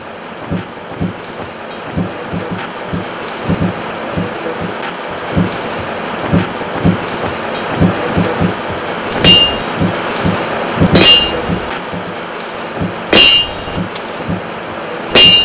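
Forge fire crackling, then, from about nine seconds in, four hammer blows on an anvil about two seconds apart, each ringing out.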